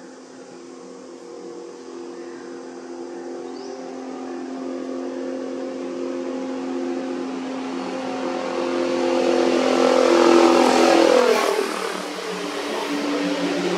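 A motor vehicle passing by: a steady engine hum builds louder for about ten seconds, peaks, and drops in pitch as it goes past, then eases off a little.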